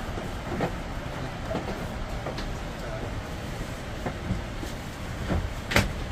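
Boeing 787 Dreamliner cabin during boarding: a steady rush of cabin air and background rumble, with scattered clicks and knocks as passengers handle the overhead bins, and one sharp knock about a second before the end.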